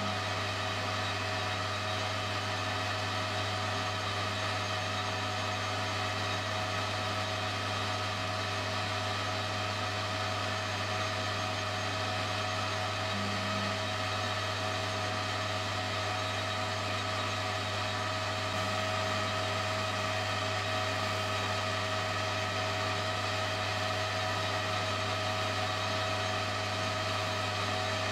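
Metal lathe running steadily with the part spinning, an even motor and drive hum that holds the same pitch throughout.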